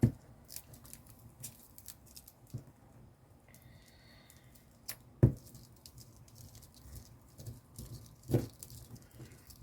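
Quiet handling of paper and craft scraps on a tabletop: faint rustles and small ticks, with three sharp knocks on the table, at the start, about five seconds in and about eight seconds in.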